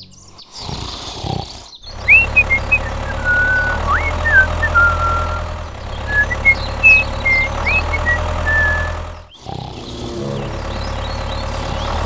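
A low engine hum runs steadily with birds chirping and tweeting over it. The sound drops out briefly a little after nine seconds in, then the engine hum comes back with few or no chirps.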